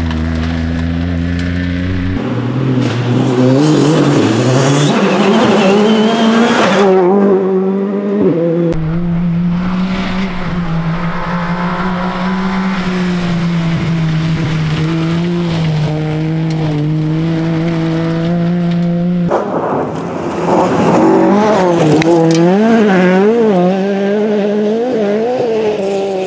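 Small 1.0-litre three-cylinder rally cars (Toyota Aygo, Peugeot 107) driven flat out one after another on a loose gravel stage. The engine note rises and falls with gear changes and throttle lifts, and the tyres scrabble over the gravel. Near the end the revs flick rapidly up and down.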